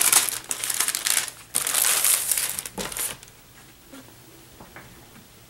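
Thin clear plastic inner sleeve crinkling as it is handled and a vinyl record is slid out of it, in two bursts in the first three seconds, then only a few faint light taps.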